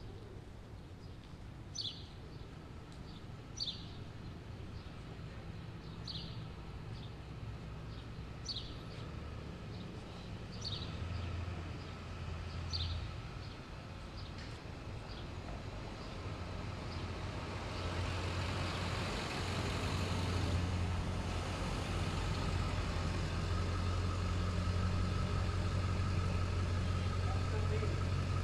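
A bird chirping short, high calls about every two seconds over the low rumble of vehicle engines. The chirps stop about halfway through, and the engine sound grows louder and holds steady through the second half.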